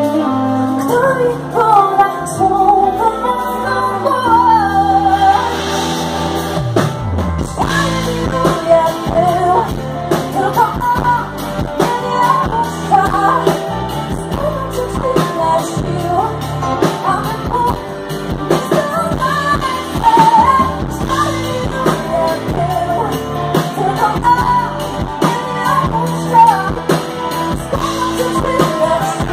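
Female vocalist singing live with a rock band: her voice carries the melody over electric guitar, bass and drums, and the band plays fuller after the first several seconds.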